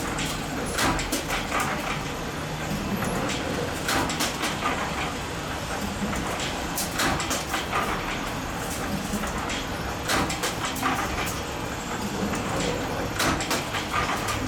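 Spring-making machine running, a steady mechanical noise with irregular sharp metallic clicks.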